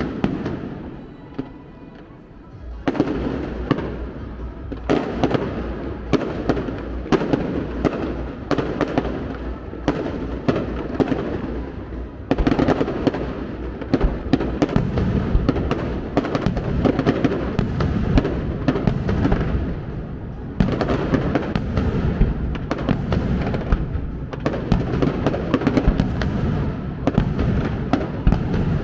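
Fireworks display: a fast run of explosive bangs from bursting shells, sparse for the first few seconds and then packed close together from about three seconds in.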